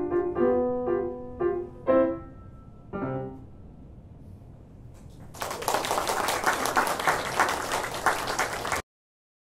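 Closing bars of a piece on a C. Bechstein grand piano: short detached notes, then a final chord about three seconds in that rings away. Audience applause starts about five seconds in and cuts off abruptly near the end.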